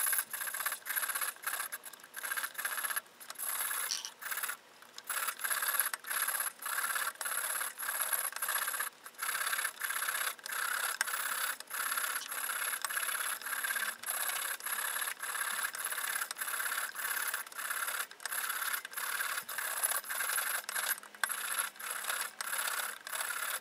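Table saw blade teeth rubbed back and forth on oiled 500-grit sandpaper over a wooden block: a run of short, even rasping strokes with brief gaps between them, as the teeth are hand-sharpened in a final fine-grit pass.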